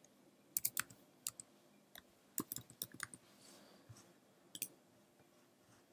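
Computer keyboard keys clicking as a file name is typed, in short irregular runs of keystrokes, with a last pair of clicks about four and a half seconds in.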